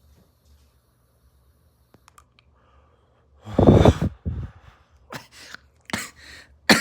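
A person coughing after a hit of smoke: quiet for about three seconds, then one heavy cough and several shorter, sharper coughs.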